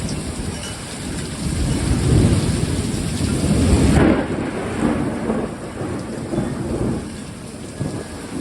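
Severe storm winds gusting with heavy rain, the wind rumbling and buffeting the microphone. These are the rear-flank downdraft winds of a derecho. The gusts are strongest near the middle, and the high hiss drops off suddenly about halfway through.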